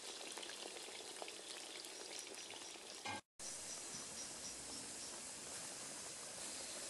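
Potato pieces deep-frying in hot oil in a cast-iron kazan: a dense, crackling sizzle. It cuts out briefly about three seconds in, then carries on steadier.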